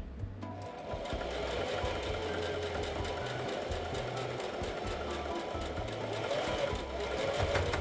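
Singer 44S Heavy Duty sewing machine starting up about half a second in, then running steadily as it stitches. Background music with a bass line plays under it.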